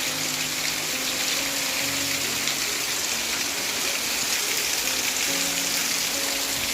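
Heavy rain falling steadily, an even hiss of water pouring down. A faint low steady tone comes and goes beneath it.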